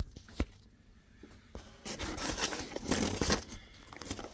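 A ribbed rubber mat being handled and shifted against the car's interior, rustling and scraping irregularly from about halfway through, after a single click near the start.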